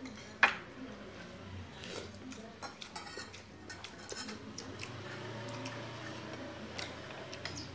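Eating by hand from a plate: fingers scraping and clicking against the plate as food is gathered up, with one sharp clink about half a second in and smaller clicks scattered through.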